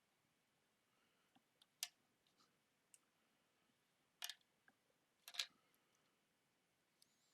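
Plastic Lego pieces clicking as they are fitted together: three sharp clicks spread over a few seconds, with fainter ticks between.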